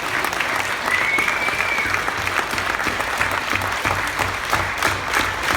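A group of people applauding, a dense steady patter of hand claps.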